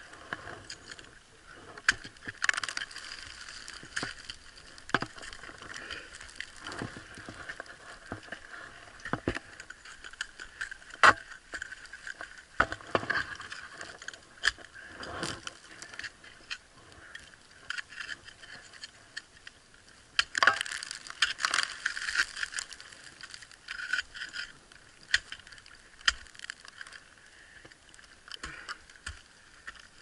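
Ice axe picks striking and scraping hard, brittle ice that they barely bite into at −19 °C, with metal climbing gear clinking. Sharp knocks come at irregular intervals, the loudest about eleven seconds in, and there are spells of scraping and crunching about two seconds in and again around twenty seconds in.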